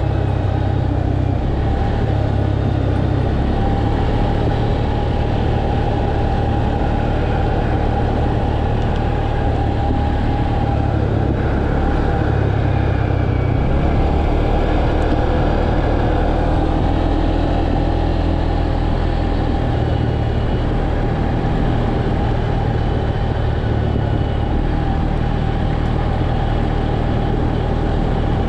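Tracker ATV's engine running steadily during a ride: a constant low drone with a thin whine above it, with no big revs or stops.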